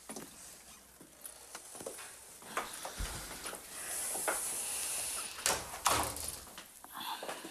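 A wooden front door being opened and shut, with scattered clicks and knocks of the latch and footsteps, a low thump about three seconds in, and the two loudest knocks close together shortly before the end.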